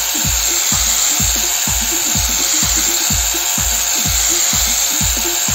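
Tosan angle grinder running under load, its abrasive disc grinding the metal jaw of a bench vise with a steady grinding noise. Background music with a steady beat runs underneath.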